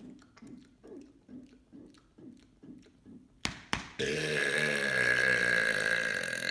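A man's long, loud burp, lasting nearly three seconds, starting about four seconds in. It is led in by a run of soft, low sounds about twice a second and two sharp clicks just before it.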